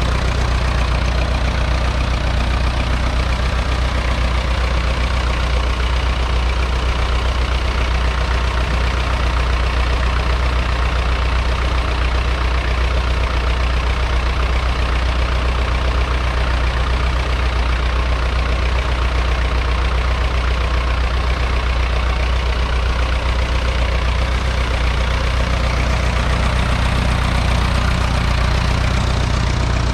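The 2.3-litre four-cylinder diesel engine of a McCormick International B275 tractor runs steadily under load, pulling a two-furrow trailed plough, heard close up from on the tractor.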